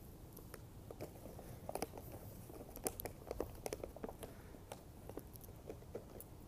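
Faint, irregular crunching of packed snow, a run of short crunches that comes thickest a couple of seconds in.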